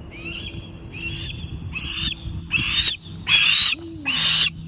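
Harris hawk giving a series of six short, harsh rasping calls, one roughly every 0.8 seconds, louder in the second half.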